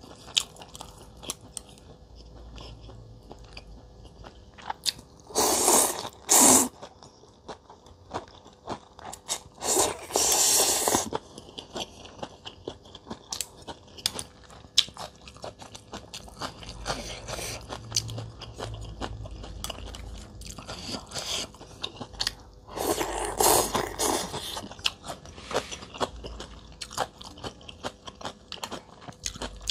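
Close-miked eating sounds of a person chewing mackerel rice-noodle soup (bún cá thu), with many small wet clicks and smacks of biting and chewing. There are three louder slurps of noodles, about six, ten and twenty-three seconds in.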